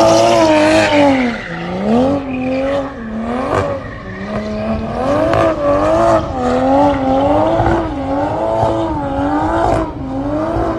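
Infiniti G35's V6 held at high revs during a burnout, the revs surging up and down as the tires spin, with a few sharp exhaust cracks from its flame tune.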